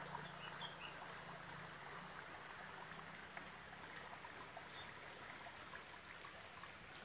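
Faint, steady rush of a river running below the bank, with a few faint high chirps early on.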